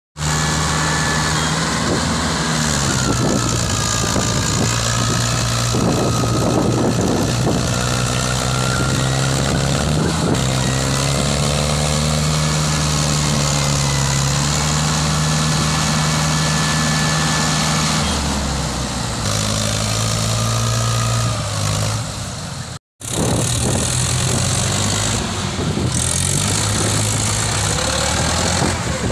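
Mahindra 575 DI tractor's four-cylinder diesel engine running hard, its pitch rising and falling with the throttle as it pulls a loaded trailer through soft mud. The sound cuts out for a moment about three-quarters of the way through, then the engine runs on.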